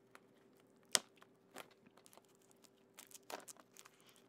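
Fingers picking at the clear plastic shrink-wrap on a RAM kit's cardboard box: faint, scattered crinkles and clicks of plastic film, with one sharper snap about a second in and a short cluster of crackles near the end.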